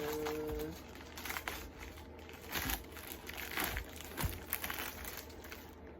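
Plastic wrapping being handled, crinkling and rustling in short, irregular bursts.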